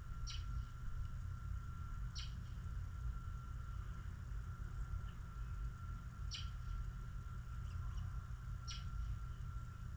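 Small songbird giving short, high chirps, four in all and spaced a couple of seconds apart, over a steady low rumble and a faint steady high tone.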